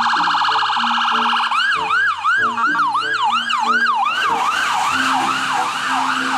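Battery-powered toy ambulance's electronic siren. It starts as a steady fast-pulsing tone, then about a second and a half in switches to quick rising-and-falling sweeps, about three or four a second, over a simple electronic tune.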